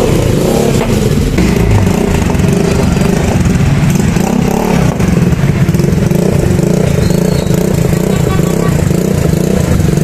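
Suzuki Burgman Street 125 scooter's single-cylinder four-stroke engine running loud through a newly fitted Akrapovic-branded stainless slip-on exhaust.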